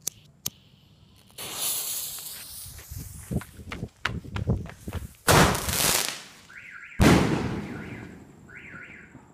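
A 1.75-inch single-shot aerial firework shell bursting in the sky: hissing and crackling, scattered sharp cracks, then two loud bangs about a second and a half apart, the second trailing off into crackle. A car alarm chirps with a repeated rising tone in the background from a little after the first bang.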